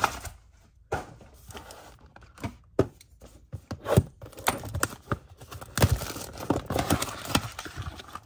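Cardboard trading-card box being handled and opened: a string of knocks and scrapes against the table, with the flaps rustling and tearing as they are pulled open in the second half.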